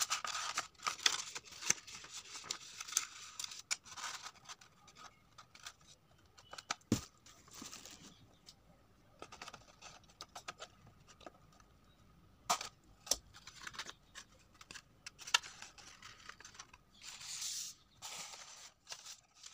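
Stiff red paper rustling and crinkling as it is bent and rolled into cones, with a few sharp clicks of a small stapler fastening the seams.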